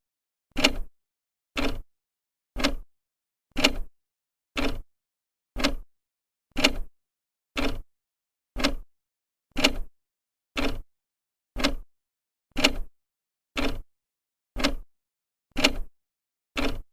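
Old clock ticking with its second hand, one short, sharp tick every second, steady and even.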